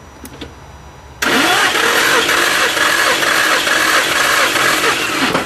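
Starter motor cranking a 2005 Infiniti G35's 3.5-litre VQ35DE V6 with its spark plugs out and fuel pump disabled, so it spins without firing, with an even pulsing rhythm. It starts suddenly about a second in and cuts off sharply after about four seconds: the engine turned over seven revolutions to build pressure on a compression gauge.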